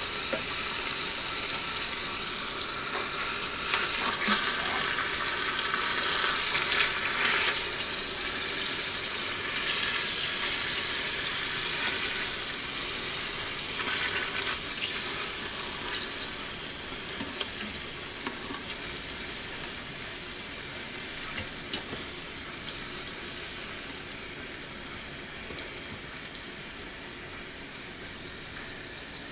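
Chicken breasts sizzling as they sear in the Instant Pot on sauté, a steady sizzle with scattered pops. The sizzle is loudest about four to eight seconds in and then slowly dies down.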